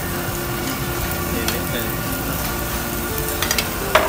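Food sizzling steadily on a tabletop Korean barbecue grill, with a single sharp click just before the end.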